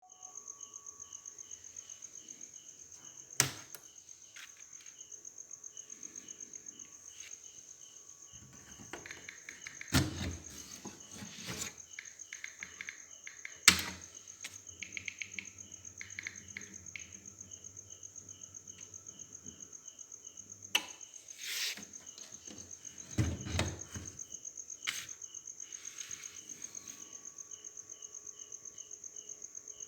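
A cricket chirping steadily in a fast, even high-pitched pulse, with several sharp knocks and clatters in between, the loudest moments.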